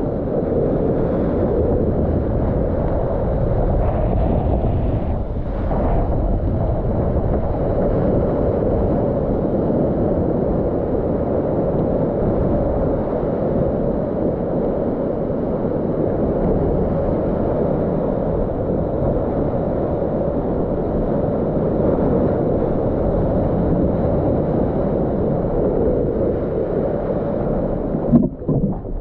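Wind buffeting an action camera's microphone, mixed with the rush of a breaking wave's whitewater around a stand-up paddleboard: a steady, low, dense noise that drops and breaks up near the end.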